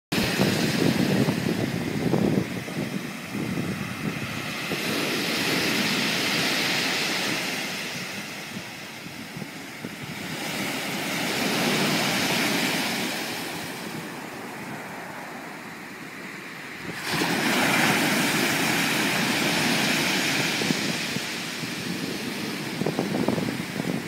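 Sea waves breaking and washing up a pebble beach, the surf swelling and fading about every five to six seconds.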